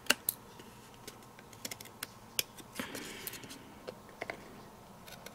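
Small pink-handled scissors snipping tabs off die-cut cardstock backed with black paper: a series of short, crisp snips and clicks at irregular intervals.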